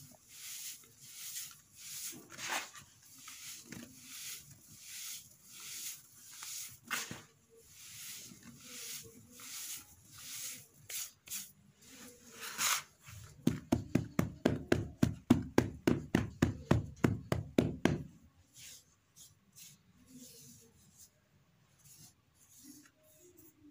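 Hands crumbling and rubbing damp sand-and-cement mix in a plastic tub: gritty rubbing strokes repeating under a second apart. About 13 seconds in comes a louder, fast, even run of strokes at about six a second for some five seconds, then only faint scattered crumbling.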